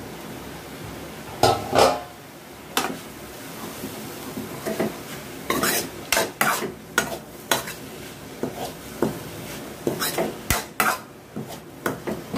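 Steel ladle stirring grated carrot in a metal kadai, scraping and knocking irregularly against the pan, with two louder knocks in the first two seconds.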